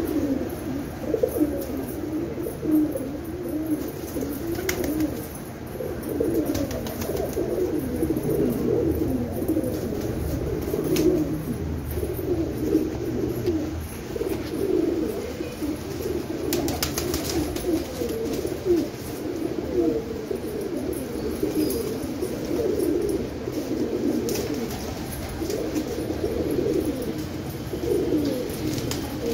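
A flock of domestic pigeons cooing continuously, many voices overlapping, with a few scattered light taps.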